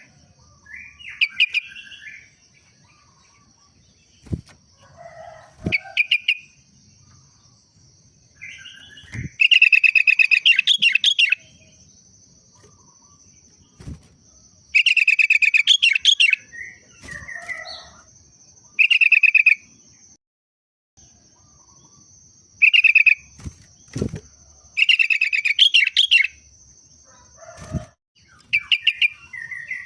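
Sooty-headed bulbul chattering in loud, rapid, pulsing bursts, five or six times, with softer short call notes in between. A few sharp knocks and a brief flutter of wings come between the bursts.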